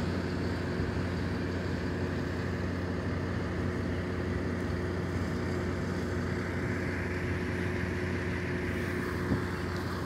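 An engine running steadily at an even pitch, a constant hum with a light noisy wash over it.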